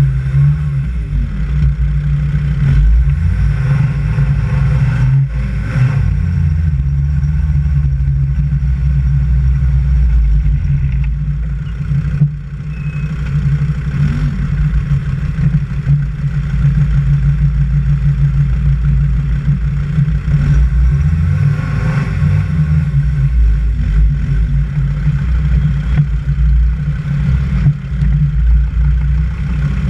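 Vehicle engine running as it drives along a muddy dirt track, its pitch rising and falling several times as it revs up and eases off.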